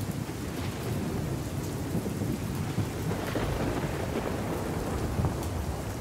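Thunderstorm: steady heavy rain with a continuous low thunder rumble underneath, no single sharp clap.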